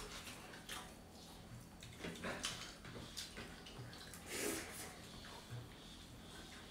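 Wet eating sounds of people eating rice and dal by hand: fingers mixing food on plates and mouths chewing, a few short, soft, separate sounds.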